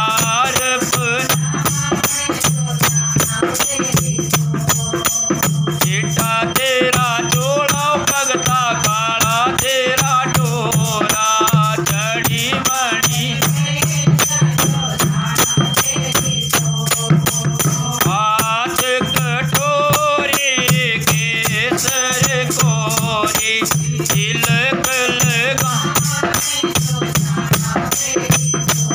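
Music: a voice singing over fast, steady rattle-like percussion and a low tone that pulses at an even beat.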